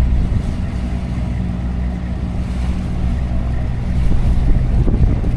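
A boat's motor running steadily, with wind buffeting the microphone, more gusty near the end.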